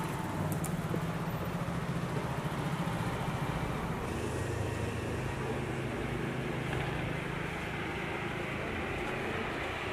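Busy city street traffic: vehicle engines running and passing, with a steady wash of road noise.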